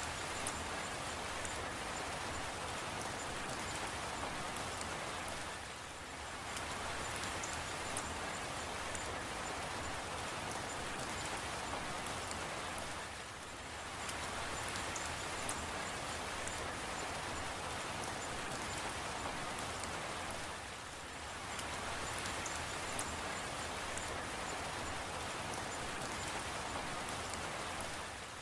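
Steady rain falling, with fine drop patter, its level dipping briefly about every seven and a half seconds.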